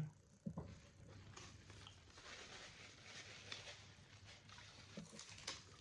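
Faint crackling and a few soft clicks, very quiet: a hard chocolate-dipped ice cream cone being bitten and eaten.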